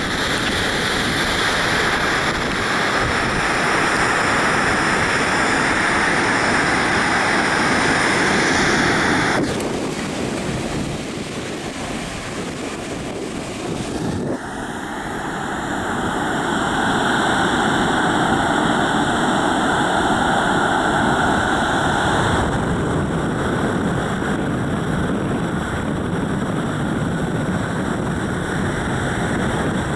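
Ocean surf breaking on a sandy beach, a steady rushing noise, with wind on the microphone. The sound turns abruptly quieter and thinner about nine seconds in and comes back fuller about five seconds later.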